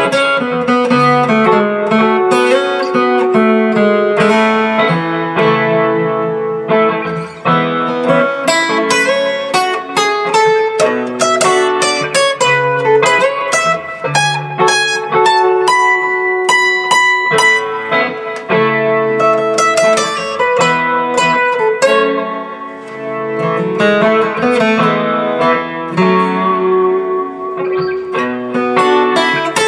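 Larrivée steel-string acoustic guitar with a bone compensated saddle, played with a pick: melodic single-note lines over a looped chord progression on the same guitar.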